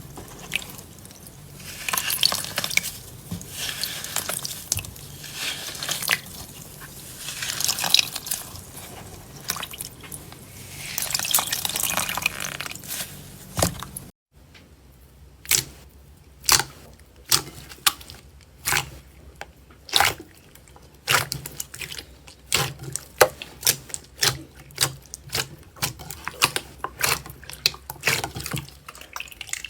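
Slime being squeezed and worked, with wet squelching swells. About halfway through the sound cuts off suddenly, and a run of sharp, separate wet clicks and pops follows.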